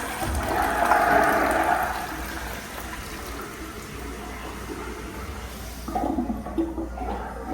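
Toto toilet flushing: a rush of water that is loudest about a second in, then dies down to a softer flow of water.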